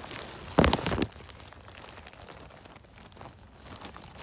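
A brief, loud crackling rustle about half a second in, lasting about half a second, over faint rustling: hands handling forest-floor litter while picking chanterelles.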